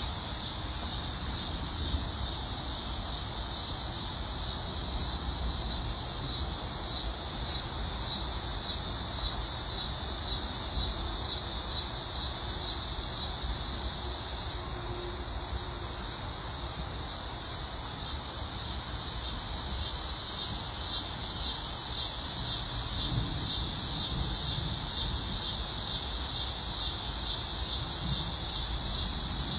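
Insect chorus: a steady high-pitched buzz that pulses evenly about one and a half times a second, easing off a little in the middle and swelling again in the second half.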